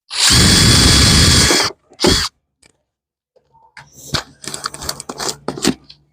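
Power drill running at full speed for about a second and a half, boring a hole for a zip tie, then a short second burst. After that come quick irregular clicks and rattles.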